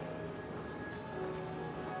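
Music with held melodic notes that change pitch every half second or so.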